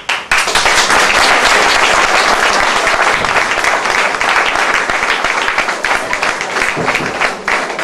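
An audience applauding loudly, breaking out suddenly and keeping up a dense, steady clapping.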